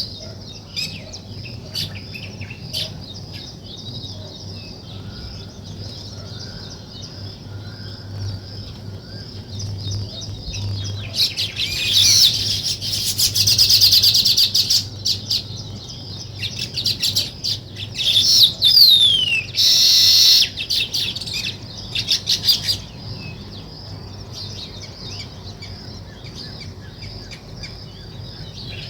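A flock of small songbirds chirping and chattering continuously in high, rapid notes. About twelve seconds in, and again around eighteen to twenty seconds, the chatter swells louder and denser, with one clear falling whistle in the second bout.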